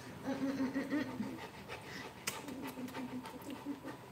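A dog panting, with two drawn-out, wavering whines of about a second each, and a single sharp click a little over two seconds in.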